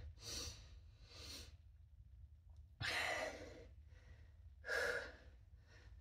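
A man breathing hard and sighing, about five heavy breaths, while catching his breath from exhaustion between sets of push-ups.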